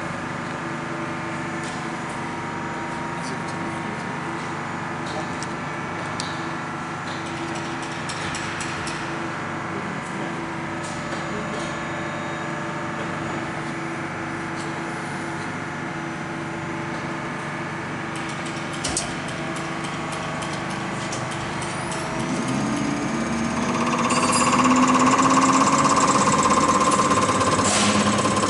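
CR926 common rail test bench running with a steady mechanical hum. About three-quarters of the way in, its pump drive spins up and rail pressure builds: the sound gets louder, with a steady high whine and rapid even ticking from the injector under test firing.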